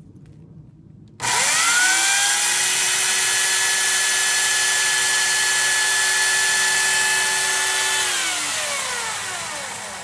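Corded electric chainsaw switched on about a second in, its whine rising quickly to full speed, then running steadily at one pitch as it cuts a slot into a pressure-treated wooden post. Near the end it is released and winds down, the pitch falling away.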